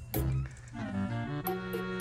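Background music: a short hit at the start, then held notes from about a second in.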